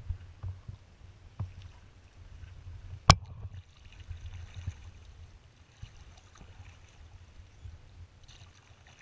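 A kayak moving through choppy water: water splashing and slapping against the hull over a low, steady rumble, with scattered light knocks and one sharp, loud knock about three seconds in.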